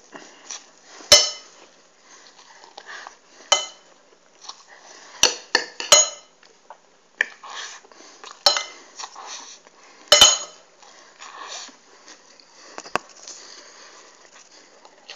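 Metal knife and fork clinking and scraping on a ceramic plate as pancakes are cut up and eaten quickly: sharp ringing clinks every second or two, with softer chewing sounds between.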